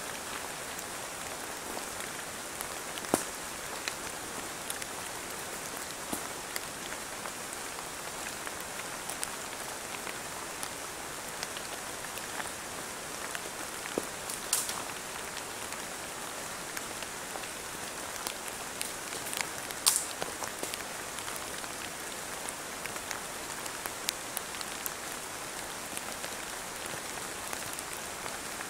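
Steady rain falling on forest leaves, a continuous hiss full of small drop ticks, with a few sharper ticks standing out; the loudest comes about twenty seconds in.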